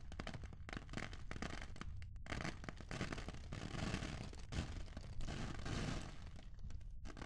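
Rice grains pattering as edited foley rain: a dense, continuous crackle of tiny ticks imitating rainfall, with brief dips about two seconds in and near the end.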